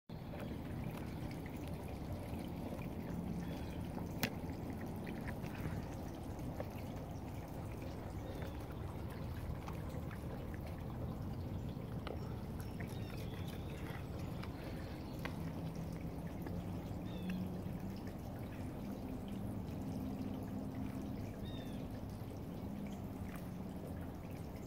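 A white-tailed buck eating apple close up: wet chewing and crunching with scattered small clicks, the sharpest one about four seconds in, over a steady low background rumble.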